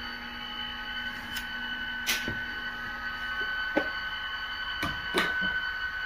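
Model railway layout: a steady high electric whine with about six sharp clicks scattered through it.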